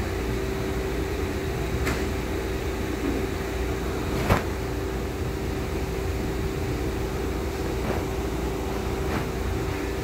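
Steady background machine hum with a constant mid-pitched tone. A sharp click about four seconds in, with fainter clicks near two and nine seconds, as the air inlet valve piston and gasket are handled.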